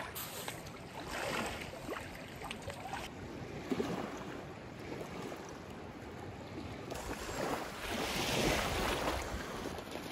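Wind buffeting the microphone over small lake waves lapping on the shore, swelling louder over the last few seconds.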